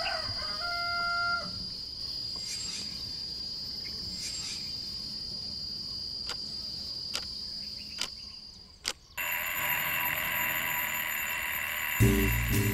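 A steady, high-pitched insect drone with a few short bird-like chirps near the start and several sharp ticks. About nine seconds in, it gives way to a mechanical twin-bell alarm clock ringing, and music begins near the end.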